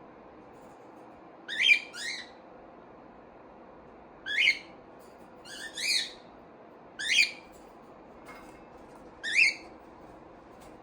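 A pet bird giving short, rising calls over and over, about six in all, every second or two, two of them close together in a pair.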